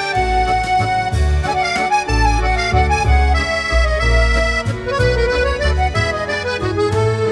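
Background music led by an accordion playing a melody over a regular bass line.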